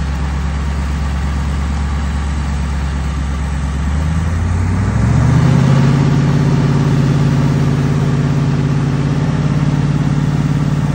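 OBS Ford service truck's engine running low and steady, then revving up about four to five seconds in and holding at the higher speed.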